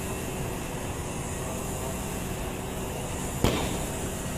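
Steady background noise with no clear pitch, and a single sharp knock about three and a half seconds in.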